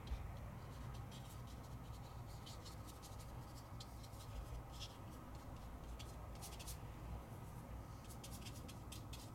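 Paintbrush stroking and dabbing on watercolour paper: faint, short scratchy strokes in irregular runs, with a quick cluster near the end.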